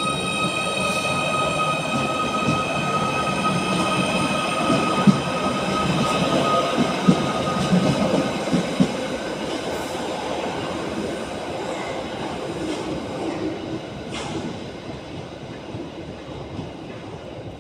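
Merseyrail Class 777 electric train running through the station, with a steady high-pitched whine for the first half and a few sharp clicks from the wheels about halfway through, then a rumble that fades.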